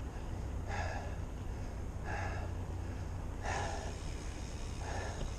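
A man breathing hard and rhythmically from the exertion of mountain biking, with four heavy breaths about one every second and a half. The breaths are close to a chest-mounted camera's microphone, over a steady low rumble.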